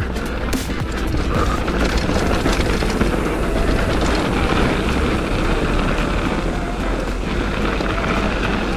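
A 2009 Kona Stinky downhill mountain bike rolling fast down a dirt and gravel trail: a steady rushing rumble from the tyres, with a few knocks and rattles from the bike over bumps near the start.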